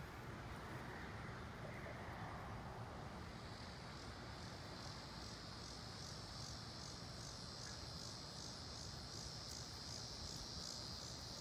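Faint insect chirping in a steady, even pulse of about three a second, setting in a few seconds in, over a low outdoor hiss.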